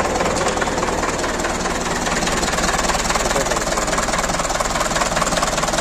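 Tractor diesel engine running steadily at idle, with an even, rapid knocking beat.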